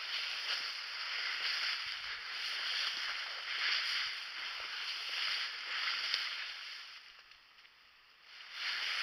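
Walking through dry bracken ferns and brush: a swishing rustle of fronds and stems that swells and fades with each stride, with small snaps in it. It stops for about a second near the end, then starts again.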